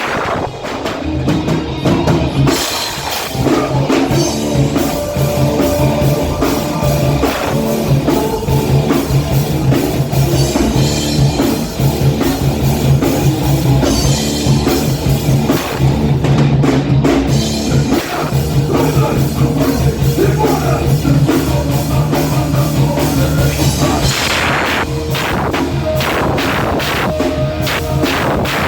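Rock band playing live: a heavy riff with bass and a drum kit keeping a fast, steady beat.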